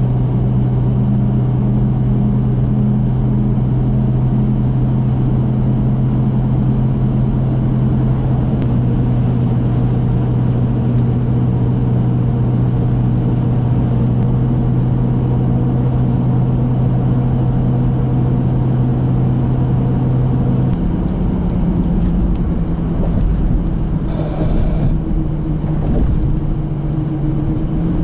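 Vehicle at highway speed heard from inside the cab: steady engine and road drone with a strong low hum that drops away about three-quarters through. A brief higher tone sounds a little later, and a different steady hum sets in near the end.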